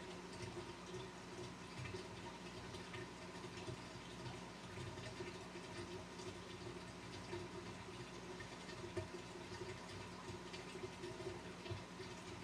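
Pump and water circulation of a 200-gallon aquarium: a steady pump hum under faint, constant trickling water.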